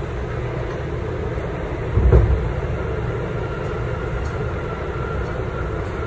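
Subway car running along the track: a steady low rumble of wheels and undercarriage, with a heavier clunk about two seconds in and a faint high whine that comes in about halfway.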